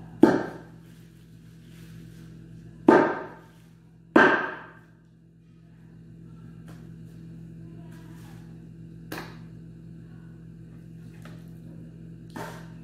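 Three loud knocks on a large metal tray in the first five seconds, each with a short ringing tail, then two fainter clicks, as raw meat is handled on the tray. A steady low hum runs underneath.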